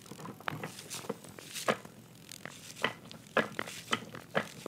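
Scattered light metal clicks and knocks as a Volvo M410 gearbox is handled and its shaft turned by hand. The shaft binds and will not spin freely.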